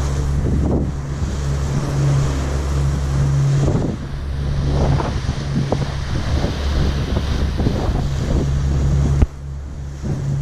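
Ferry under way: a steady low engine drone with wind buffeting the microphone and the rush of water. A knock near the end, after which the wind noise eases.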